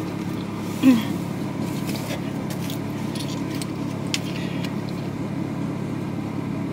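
A car driving: a steady low engine and road drone, with a few faint clicks.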